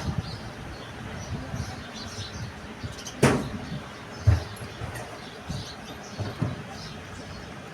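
Metal parts and tools being handled during hand assembly of a truck air compressor: scattered light clinks, a sharp knock about three seconds in, and a dull thump a second later.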